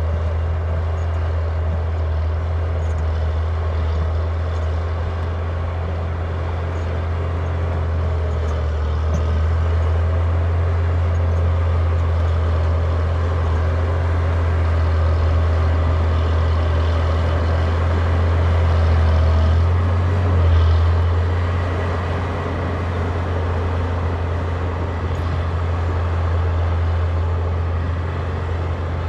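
Caterpillar D6D crawler dozer's diesel engine running steadily under load as the dozer breaks out shale and clay. The deep engine note swells about two-thirds of the way through, then settles back.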